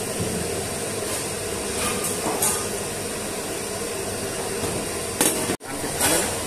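A few sharp knocks and clinks of kitchen utensils over a steady background hum, with the sound cutting out for an instant about five and a half seconds in.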